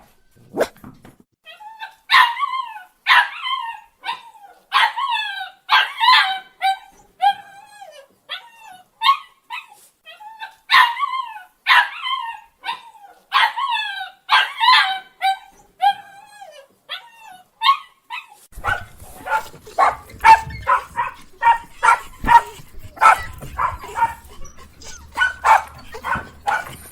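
A small dog yipping, high-pitched calls that slide down in pitch, roughly one a second. About two-thirds of the way through, another recording cuts in: a dog barking quickly, a couple of short barks a second, over a low hum.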